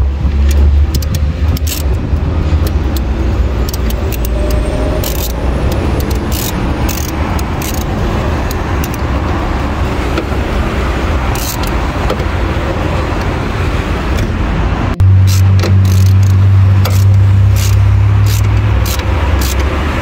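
Ratchet and socket clicking and clinking on the 10 mm battery hold-down bolt as the new battery is clamped in. A steady low drone runs underneath and shifts in pitch about three-quarters of the way through.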